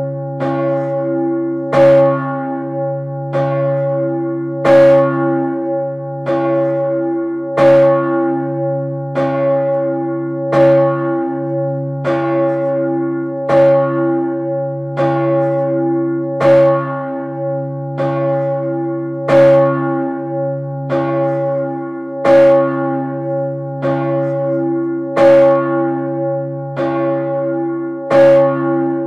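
Large bronze swinging church bell, most likely Urban, the 3200 kg bell cast by Peter Gräf in 1588 and tuned to about C-sharp, ringing steadily. The clapper strikes about every one and a half seconds, alternating louder and softer, and a deep hum carries on between the strikes.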